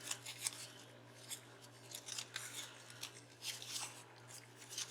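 Irregular crisp crinkling and clicking of paper flowers and their packaging being handled and picked through, over a faint steady hum.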